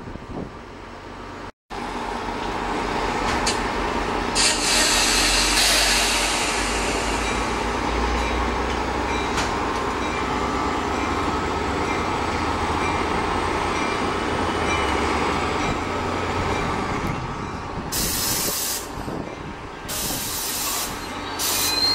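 Diesel-hauled commuter train standing at a station platform, its locomotive engine running with a steady low rumble. Air hisses for a couple of seconds about four seconds in, and there are short bursts of air hiss near the end.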